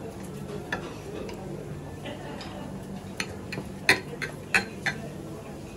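Chef's knife cutting through grilled leaf-wrapped fish, its blade clicking against the ceramic platter several times, most of the clicks bunched between about three and five seconds in, over a steady low hum.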